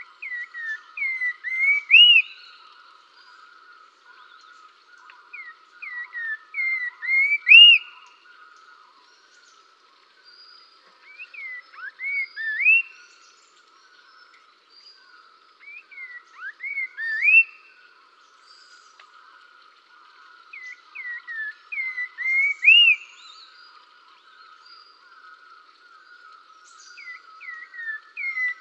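A songbird repeating one whistled song phrase about every five seconds: a run of gliding notes that grows louder and ends on a loud upswept whistle. A steady trilling chorus carries on underneath.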